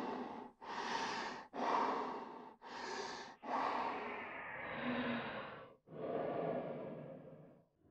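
A person breathing in and out through the mouth and nose, about six breath sounds in a row, each around a second long with short pauses between them; the last two are slower and longer.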